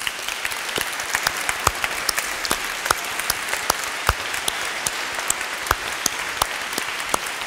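Audience applauding steadily, a dense patter of clapping with single sharp claps standing out.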